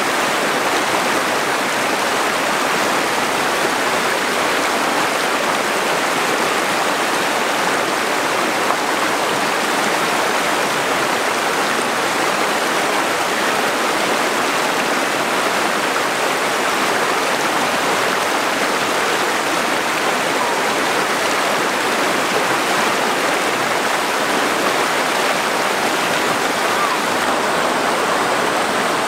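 A shallow, rocky river rushing over stones and through small rapids, a steady, unbroken rush of water.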